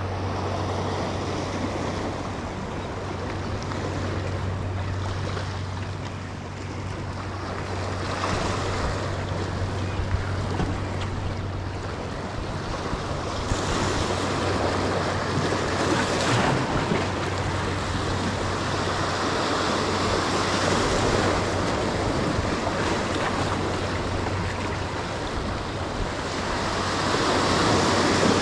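Waves breaking and washing over jetty rocks, the surf noise swelling and easing every few seconds, with wind on the microphone and a steady low hum underneath.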